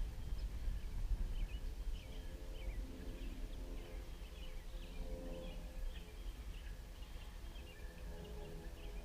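Small birds chirping over and over in quick, short calls, with a steady low rumble of wind on the microphone underneath.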